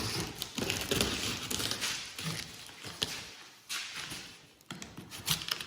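Packing tape being pulled off a cardboard box: stretches of rasping, tearing noise, with a few sharp clicks near the end.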